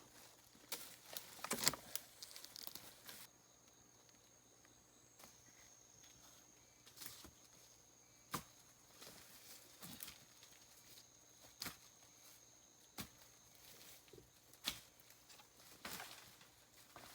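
Scattered rustling and small twig snaps in forest undergrowth, busiest in the first three seconds and then only as single snaps every second or two. From about three seconds in, a faint steady high-pitched insect drone sounds underneath.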